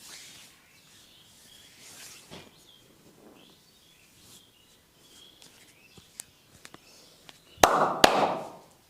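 Hands massaging bare skin in soft rubbing strokes, then two sharp smacks about half a second apart near the end, the loudest sound, each followed by a brief rush of noise.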